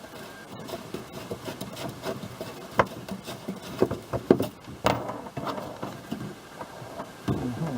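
Hands working a fibreglass battery box and its nut-and-bolt fixings inside a plastic kayak hatch: irregular rubbing and scraping with scattered light clicks and knocks, a few sharper knocks around the middle.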